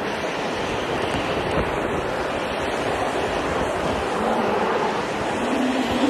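Strong storm wind blowing in a steady rush, with wind buffeting the microphone.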